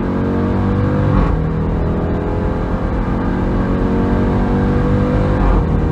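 2021 Jeep Trackhawk's supercharged 6.2-litre V8 at full throttle, heard from inside the cabin. The revs climb steadily, fall at an upshift about a second in, climb again and fall at another upshift near the end.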